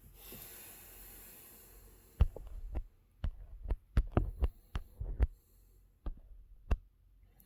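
About a dozen sharp, irregular clicks and taps of small hard objects being handled, spread over about four seconds after a short quiet start.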